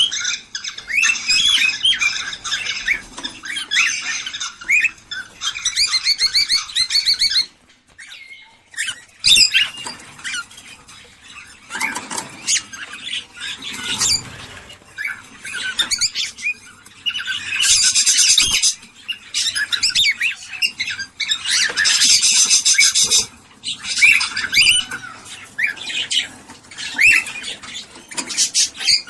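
Cockatiels chirping, whistling and squawking in rapid bursts of chatter, the kind of calling used to stimulate cockatiels to breed. It breaks off briefly about eight seconds in, with some knocks in the middle stretch, then returns loudly.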